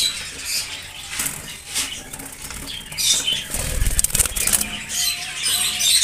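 A colony of caged lovebirds fluttering their wings and chattering in short, sharp, high-pitched chirps. A low rumble comes about two thirds of the way through.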